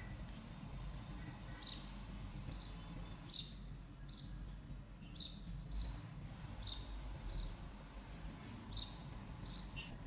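A small bird chirping in short, high notes, about one a second, over a steady low hum.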